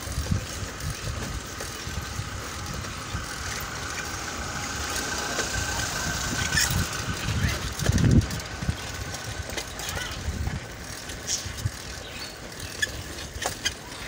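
Wind buffeting the microphone of a camera carried on a moving bicycle: an uneven low rumble, strongest in a gust about eight seconds in, with scattered light clicks and rattles.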